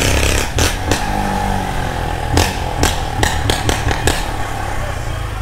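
Motorcycle with a de-baffled exhaust running at low speed, with about nine short, sharp cracks scattered through it.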